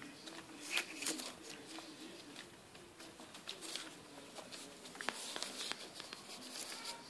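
Puppies tussling on spread newspaper: irregular crinkling, rustling and claw scratches on the paper, with a faint, low, wavering voice-like sound underneath.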